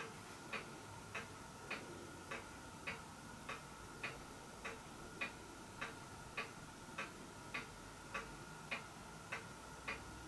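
Regular ticking, a little under two ticks a second, evenly spaced and steady, over a faint steady high hum.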